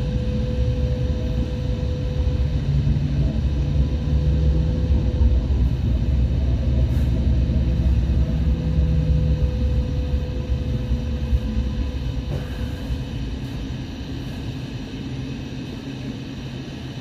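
Interior sound of a first-generation Hong Kong light rail vehicle under way: a steady low rumble of the car on the track with a steady motor tone. It grows quieter over the last several seconds and the tone dies away as the car slows for a stop.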